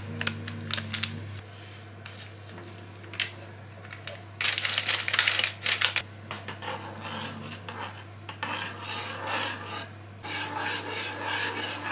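A metal spoon stirring powdered sauce mix into milk in a stainless-steel saucepan, scraping against the pan in a repeated rhythmic scrape through the second half. A few sharp clicks come in the first second, and a louder noisy burst of about a second and a half comes around the middle.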